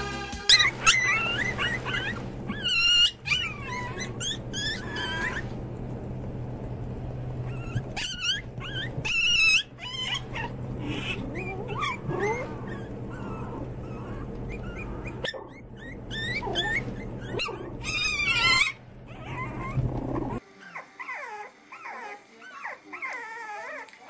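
Puppies yapping and whimpering in short high-pitched yips and squeals over a steady low hum. Near the end the hum stops and the calls turn to softer, wavering puppy whines.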